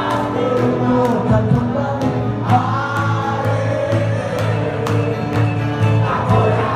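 Keroncong-folk band playing live, with voices singing together over a pulsing bass line and sharp percussive strokes.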